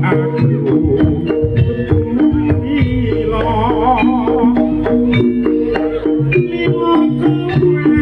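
A Javanese jaranan gamelan ensemble playing live: kendang hand drums beat a quick, busy rhythm over a stepping metallophone melody, with a wavering melodic line rising above it for a moment in the middle.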